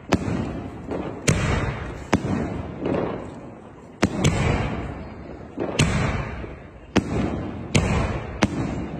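A 3-inch gold titanium willow fireworks cake firing its shells one after another. There are about eight sharp bangs, spaced one to two seconds apart, and each trails off in a hissing fade that lasts about a second.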